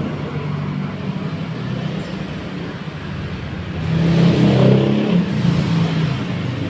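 JETSpin CR-5500 carpet spinner running steadily with a low hum, its drum spinning. The sound swells louder and noisier about four seconds in.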